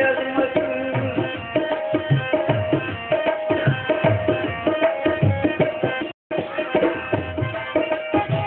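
Instrumental folk music: tabla playing a quick rhythm under a held, repeating melody. The audio cuts out for a moment about six seconds in.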